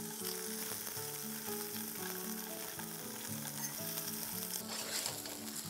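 Paneer cubes sizzling steadily as they shallow-fry in a little oil in a stainless steel pan, with soft background music.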